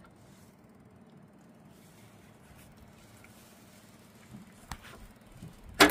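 A faint steady hum with a couple of light clicks, then right at the end the 1960 International B275's four-cylinder diesel is suddenly loud as it is cranked over on a cold start, jumped from another battery.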